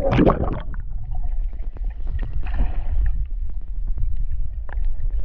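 A splash as the microphone plunges under the sea surface, then the muffled sound underwater: a steady low rumble with scattered sharp clicks and bubbling.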